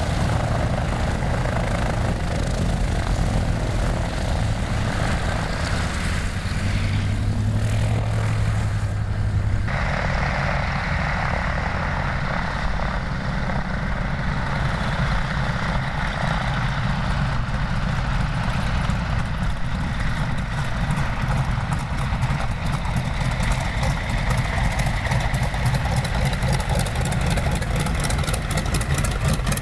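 Radial piston engines of vintage twin-engined propeller aircraft running steadily on the taxiway. The engine sound changes abruptly about ten seconds in.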